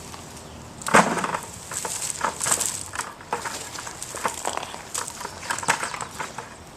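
A run of irregular knocks, scrapes and clicks, the loudest about a second in.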